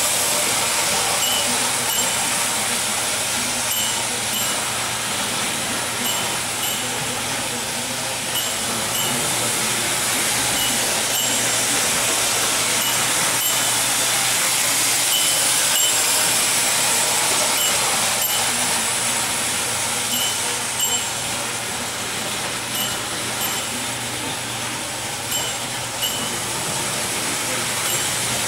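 Unique Art clockwork tinplate toy steam train running on its track: a steady whirring rattle from the wound spring motor and the wheels on the tin rails.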